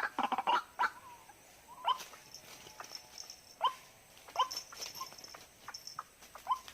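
White-breasted waterhen calls: a quick run of harsh calls at the start, then single sharp, falling notes spaced a second or so apart. A faint, steady high-pitched sound sets in about two seconds in.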